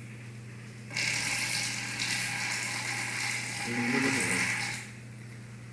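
A steady hissing rush like a stream of running water, starting about a second in and lasting about four seconds, which a listener takes for someone peeing; a short low groan sounds near its end.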